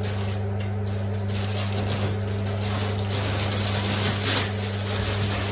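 Electric potter's wheel motor humming steadily, with faint rustling.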